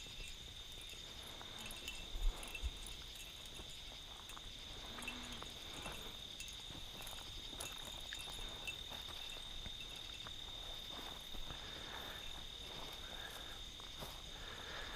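Steady high-pitched trilling of crickets, with scattered light rustles and footsteps through dry grass and brush.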